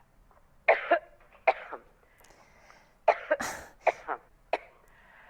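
A person in a coughing fit: about ten short, harsh coughs in clusters of two or three, with short silent pauses between the clusters.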